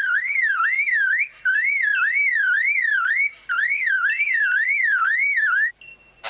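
Superb lyrebird mimicking a car alarm: a loud whistle sweeping up and down about twice a second, in three phrases with short breaks. It stops shortly before the end.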